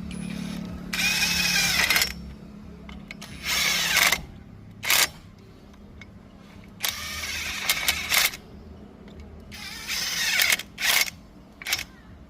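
A power tool running in short bursts, about seven times: two longer runs of a second or more, the rest brief, with pauses between.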